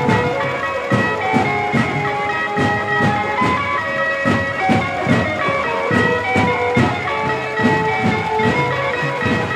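A reedy wind instrument playing a held, wavering melody over a steady drumbeat of about two strokes a second: procession music.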